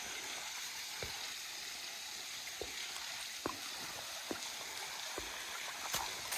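Footsteps crossing a footbridge, one soft thud about every half second to a second, over a steady hiss.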